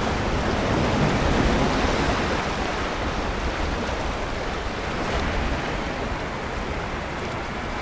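Sea waves washing onto a beach: a steady rush of surf that swells slightly in the first couple of seconds and eases off toward the end.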